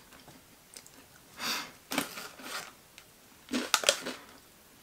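Quiet crunching of a chocolate-coated oat-pillow cereal snack being chewed, heard as a few short crackly bursts; the last, near the end, comes with the rustle of the snack pouch as a hand reaches into it.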